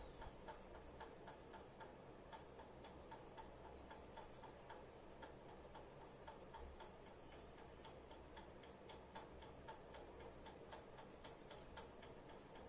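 Near silence: room tone with faint, quick, regular ticking.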